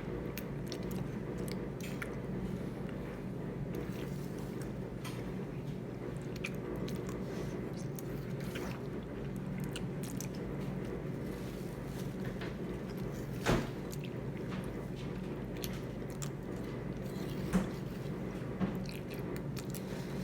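People chewing and biting food at a meal, with small scattered clicks and three sharper clicks in the second half, over a steady low background hum.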